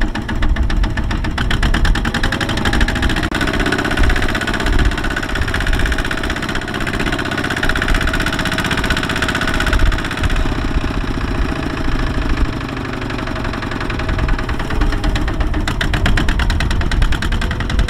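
Kubota RT140 walking tractor's single-cylinder diesel engine running steadily with a rapid, even beat, working with its drive wheel bogged in mud.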